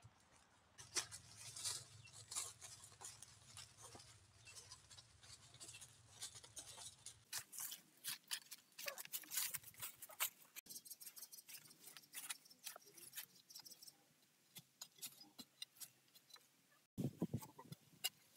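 Faint, irregular crackles and rustles of footsteps in flip-flops over dry bamboo leaves and soil, with a louder rustle near the end.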